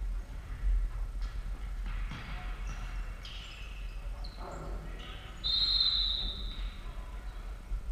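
Futsal being played on a wooden sports-hall floor: scattered knocks of the ball being kicked and bouncing, and shoe squeaks, the longest a high squeal of about a second about five and a half seconds in, over a steady low hum.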